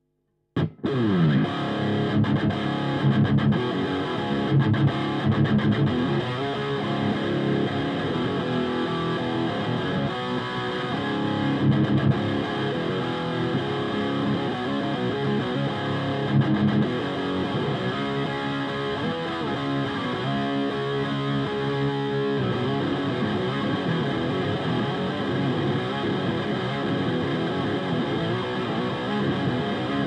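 Seven-string Carvin DC727 electric guitar with Bare Knuckle Black Hawk pickups played through a Diezel VH4 amp on its high-gain channel, close-miked on the cabinet with an SM57, with no noise gate or pedals. The playing starts suddenly about half a second in with a falling slide, then heavy distorted riffing. From about 22 seconds in it turns to longer ringing notes.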